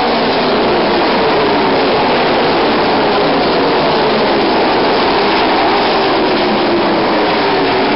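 A pack of ARCA stock cars' V8 engines running at speed, several engine notes overlapping and slowly sliding down in pitch as the cars go by.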